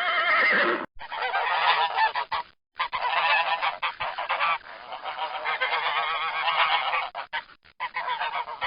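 A flock of geese honking, many calls overlapping. The calls break off briefly about a second in and again about two and a half seconds in.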